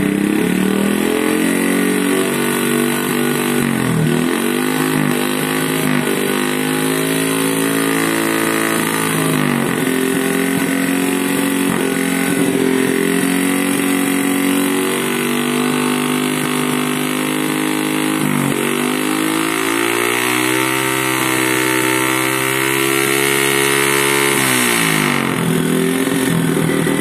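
Motorcycle engine running on a homemade fogging rig. Its revs dip and climb back about four times as the throttle is worked, with a slow climb before the last dip. The engine is sending a diesel and insecticide mix through its hot exhaust to make fogging smoke.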